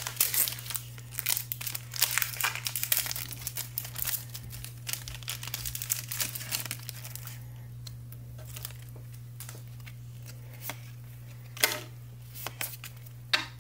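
Foil wrapper of a Pokémon three-card booster pack being torn open and unwrapped by hand: a dense run of crinkling and crackling for about the first seven seconds, then only a few scattered crinkles and clicks as the cards are handled.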